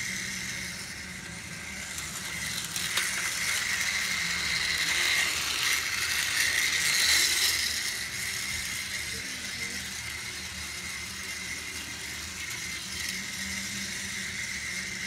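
Battery-powered Tomy Plarail toy train running fast on plastic track: a steady high motor-and-gear whine with the rattle of its wheels on the track, louder for a few seconds around the middle.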